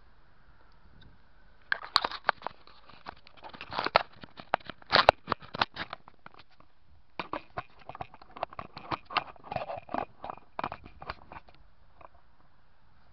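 Handling noise from a small camera being picked up, turned and set back down: a dense run of irregular clicks, taps and rustles right at the microphone, in two spells with a short pause between them.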